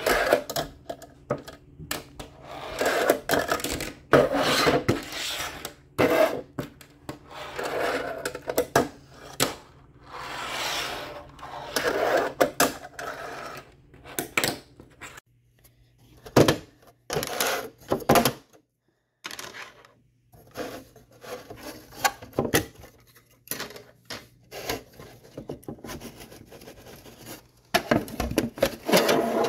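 Tech Deck fingerboard rolling and scraping across a tabletop and ramps, broken by many sharp clacks of the board popping, landing and grinding, along with ramp pieces being handled. It comes in stretches of rolling noise and clicks with a couple of brief pauses.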